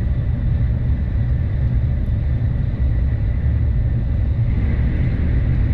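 Tokaido Shinkansen Kodama train running, heard from inside the passenger cabin as a steady low rumble.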